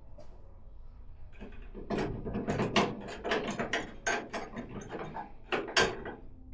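Hand tools clicking and knocking on metal in an uneven run of sharp clicks, two much louder knocks among them, as a stubborn stock bonnet hinge fixing on a classic Mini is worked loose.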